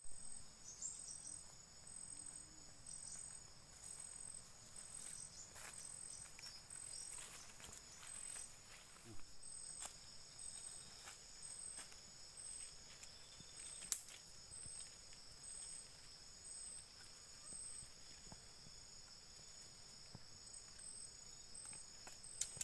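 Rainforest insects calling: a steady high-pitched trill with another insect pulsing above it a little faster than once a second. Faint scattered clicks, and one sharp snap about fourteen seconds in.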